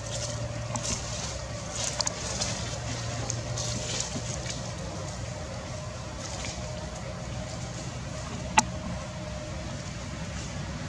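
A motor running steadily as a low hum, with scattered light clicks and rustles over it and one sharp click about eight and a half seconds in.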